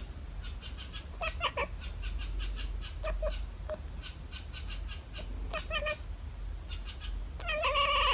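A cat chattering: short runs of rapid clicking chirps, one run roughly every second, ending in a drawn-out meow near the end.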